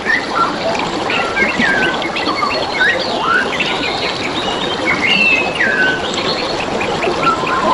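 Several wild birds chirping and whistling, short notes and falling slurred phrases overlapping, over the steady rush of trickling, flowing water.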